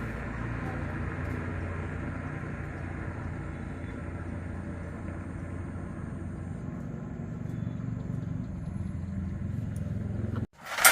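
110cc motorcycle engine running steadily with a low rumble, cut off suddenly near the end and followed by a sharp knock.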